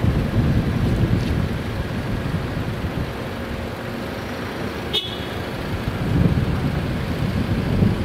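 Low, uneven vehicle rumble, with a single sharp click about five seconds in.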